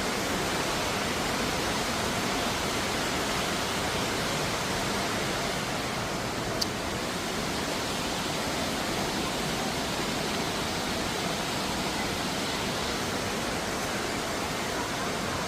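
Steady, even rushing noise with no pitch to it, broken only by a single faint click about six and a half seconds in.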